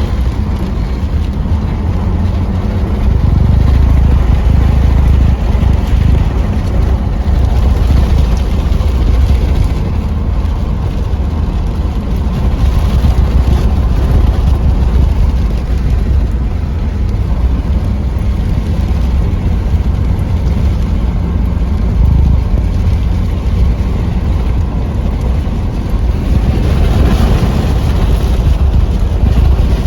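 Strong wind buffeting the microphone: a loud, uneven low rumble that surges and eases, heaviest around 4 to 9 seconds in and again near the end.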